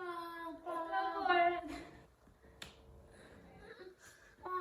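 A woman's voice making a mouth-made sound imitation: a steady held tone in two parts over the first two seconds, then a single sharp snap-like click. Another held vocal tone starts right at the end.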